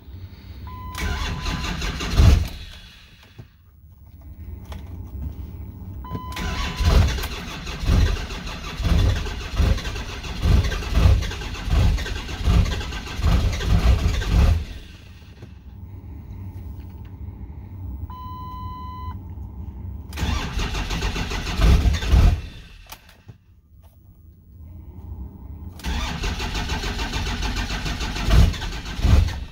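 Cold diesel engine of a 2009 Ford F-250 (a Cummins) being cranked over by the starter in four separate attempts, the longest lasting about eight seconds and pulsing with each compression, without settling into a steady idle. A short electronic warning chime sounds just before three of the attempts.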